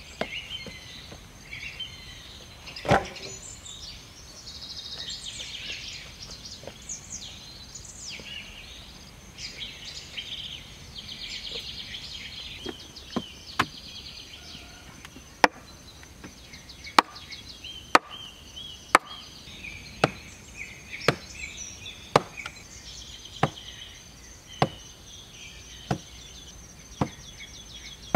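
Sharp wooden knocks about once a second from about halfway on, as an upright wooden post is pounded into the ground. Before them, birds chirping over a steady high insect drone, with one loud knock about three seconds in.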